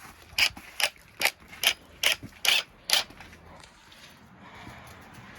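Footsteps crunching on crushed rock: about seven crisp steps a little under half a second apart, stopping about three seconds in.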